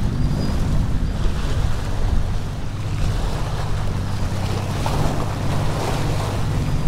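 Choppy water washing and splashing against granite jetty boulders, with wind buffeting the microphone and a steady low hum underneath. The splashing is livelier about five seconds in.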